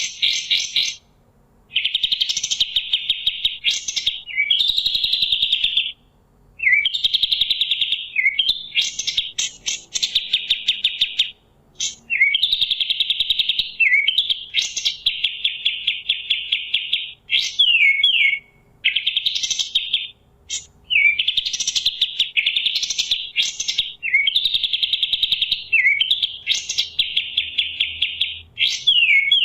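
Kapas tembak songbird singing: long, fast, high trills of one to three seconds each, broken by short rising notes and brief pauses, repeated throughout.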